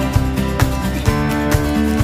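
Music with a steady beat of about two strokes a second and held instrumental notes.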